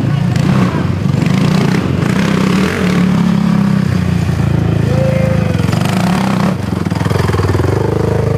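Racing quad (ATV) engine running loudly and steadily, with some shift in its pitch about four seconds in.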